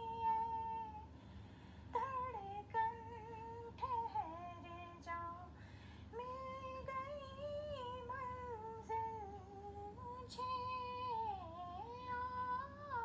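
A woman's voice humming a slow, wordless melody in long, high held notes that glide between pitches, with short breaks every couple of seconds.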